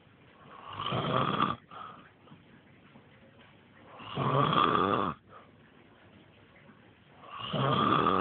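A man snoring heavily in his sleep: three snores about a second long, roughly three and a half seconds apart, with quiet breathing between them.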